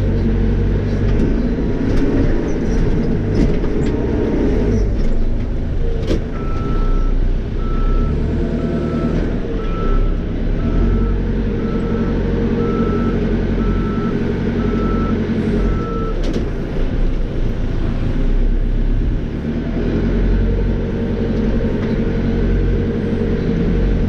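Caterpillar 430E backhoe loader's diesel engine running steadily while working. In the middle, a reverse alarm beeps about once a second, roughly eleven times.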